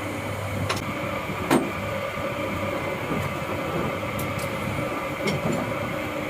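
A machine running with a steady hum, with a few sharp clicks over it, the loudest about a second and a half in.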